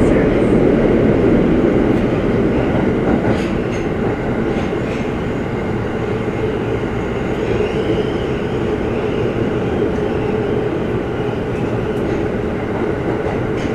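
Tokyo Metro Ginza Line 1000 series subway car running through a tunnel between stations, heard from inside the car: a steady rumble of wheels on rail and running gear. It eases slightly in loudness over the first few seconds, then holds steady.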